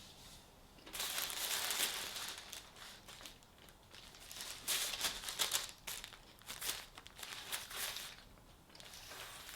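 Takeaway food packaging being crinkled and torn open by hand, in two bouts of crackly rustling with a quieter pause between.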